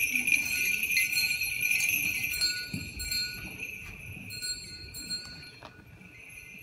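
Small bells on a swinging chain incense censer jingling steadily, then fading away over the last couple of seconds.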